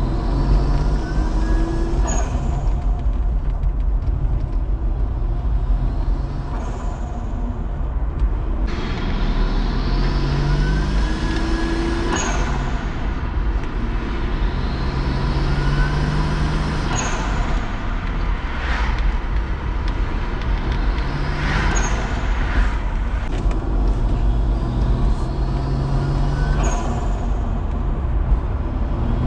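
Nissan Skyline ER34's turbocharged RB25DET straight-six accelerating repeatedly, its pitch rising, with a sharp hiss of air from the HKS SSQV blow-off valve venting each time the throttle closes, about six times.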